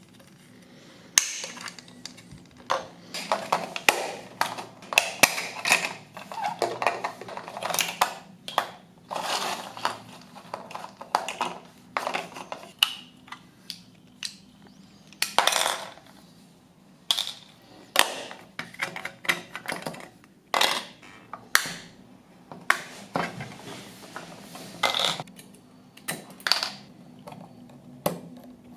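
Small metal parts and hand tools clinking, tapping and knocking on a hard work surface: irregular sharp clicks, some with a short metallic ring.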